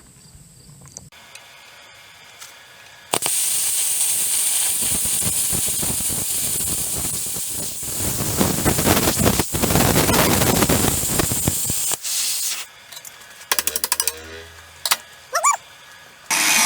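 Plasma cutter arc hissing loudly and evenly as it cuts 3/8-inch hot-rolled steel plate. It starts about three seconds in and runs for about nine seconds, then comes in several short stop-start bursts near the end.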